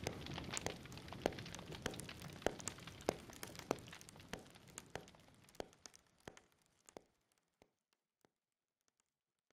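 Rain pattering and crackling, much like a wood fire, with a drop falling about every 0.6 s. The patter dies away over about seven seconds, leaving only the faint regular drips.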